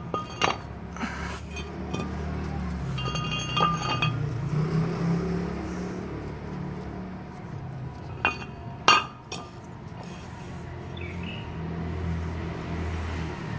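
Cast-iron brake rotors, an old front disc and a new slotted one, clinking and ringing as they are handled against each other on a concrete floor, with two sharp knocks a little past halfway. A steady low rumble runs underneath.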